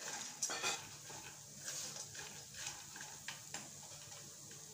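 Wooden spatula stirring fried peanuts and roasted chana dal (daliya) through spiced oil in a kadhai: a string of short scraping, rattling strokes, about one every half second, that die away about three and a half seconds in.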